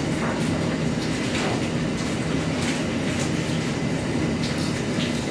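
Steady hum and rush of auditorium room noise, with a few faint clicks.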